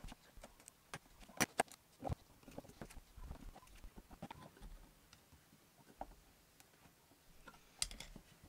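Screwdriver turning the screws on the metal end panel of a Giandel 300 W pure sine wave inverter, giving faint, irregular clicks and ticks of metal on metal. There are sharper clicks about a second and a half in and again near the end.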